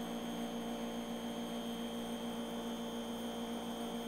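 Steady electrical hum made of several constant tones over a faint hiss, unchanging throughout.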